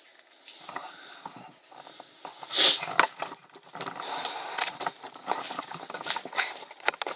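Handling noises: rustling and many small clicks, with a short, louder breathy burst about two and a half seconds in.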